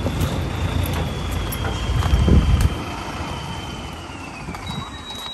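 Tractor engine running with a dense low rumble that eases off about halfway through. A thin high whine slowly falls in pitch near the end.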